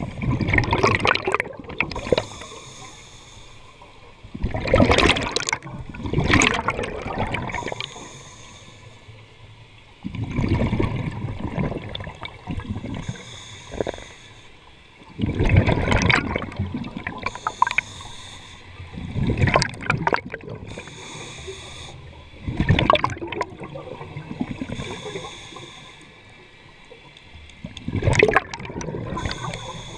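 A scuba diver breathing through a regulator underwater: the hiss of each breath and the rush and gurgle of exhaled bubbles come in regular surges every few seconds.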